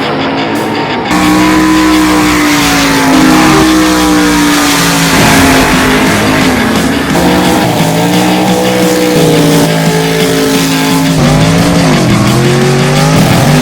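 A drag race car's engine running and revving hard, with a loud hissing roar from about a second in, mixed with heavy rock music.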